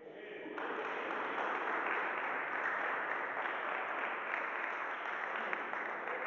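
Audience applauding, coming up about half a second in and holding steady.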